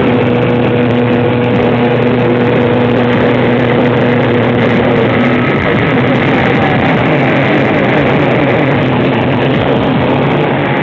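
A band playing loud, distorted heavy music live, with guitars and drums in one dense wall of sound. Held guitar notes give way about five and a half seconds in to a busier passage.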